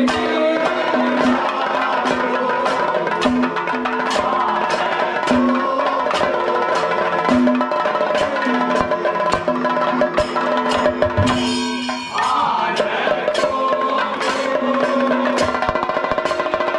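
Bronze hand cymbals (ilathalam) clashed in a steady beat, about two strikes a second, under a group of men singing a ritual song.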